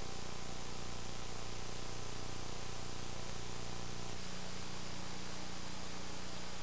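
Steady hiss with a low, even hum from a blank stretch of VHS tape playback; no music or voice.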